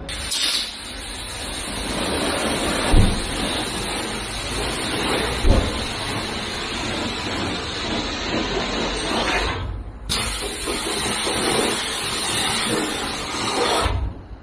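Car-wash pressure washer lance spraying water onto a bicycle, a steady loud hiss that starts abruptly, breaks off for a moment about ten seconds in and then resumes until it cuts off near the end: the soaking spray before the main wash. Two dull thumps come through the spray, about three and five and a half seconds in.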